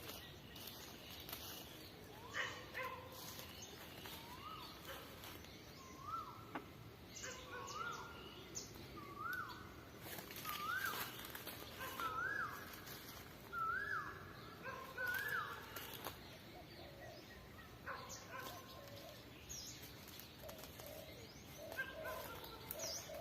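Farmyard birds calling: a run of about nine calls, each rising then levelling off, roughly one a second, with scattered chirps. Low repeated calls come in near the end.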